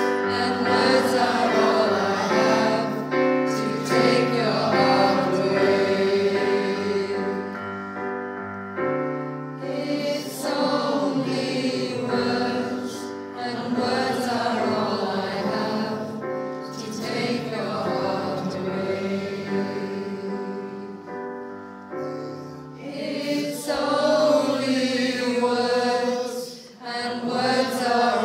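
A choir singing a song together in several held, changing notes, phrase after phrase with short breaths between.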